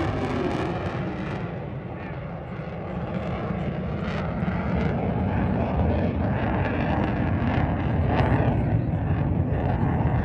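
Jet noise from F-22 Raptor and F-35A Lightning II fighters in flight, a continuous deep rumble. It eases off slightly about two seconds in, then builds again as the jets come closer.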